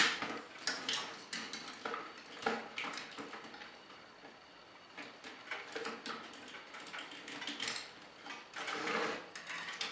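Hard plastic toy robot parts clicking and clacking as they are handled, with a string of irregular sharp clicks and knocks and quieter gaps between them.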